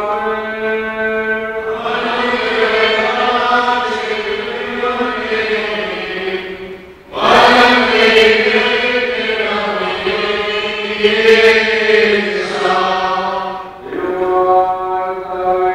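Voices chanting a hymn together in long held notes. The chant dips briefly about seven seconds in, then comes back louder.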